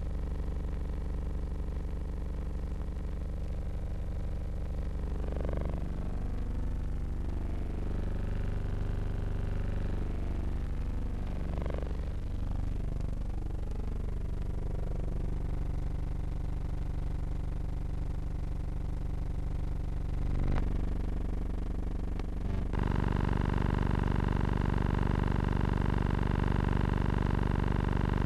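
Steady engine drone with a low hum. There is a sharp click about twenty seconds in, and the drone turns louder and fuller a couple of seconds later.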